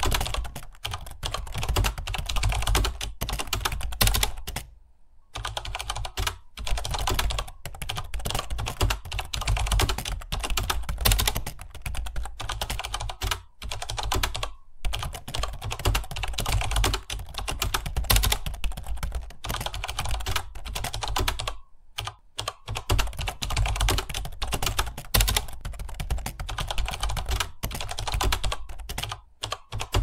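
Fast, continuous typing on a computer keyboard, a rapid stream of key clicks with brief pauses about five, fourteen and twenty-two seconds in.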